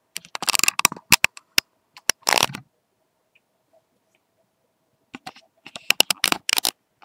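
Close rustling and scraping handling noise with sharp clicks, in two spells: one in the first two and a half seconds and another near the end, with quiet between.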